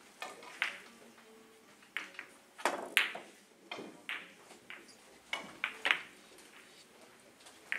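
Three-cushion billiard balls clicking: a cue tip striking the ball, then balls knocking into each other and the cushions, heard as a dozen or so sharp clicks, the loudest about three and six seconds in.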